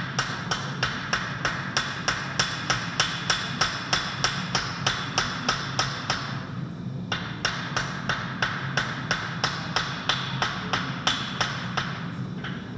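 Hand hammer striking a hot composite damascus billet on an anvil, about four blows a second with a brief pause a little past halfway. These are the first light passes that drive the flux out of the fresh weld.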